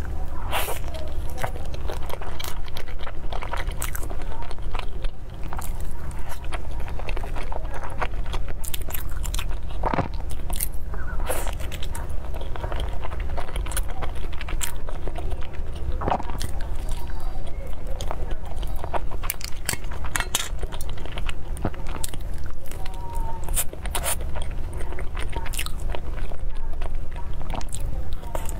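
Close-miked mouth sounds of someone biting into and chewing soft pastries, including a taro-paste egg tart, with many small wet clicks and smacks throughout.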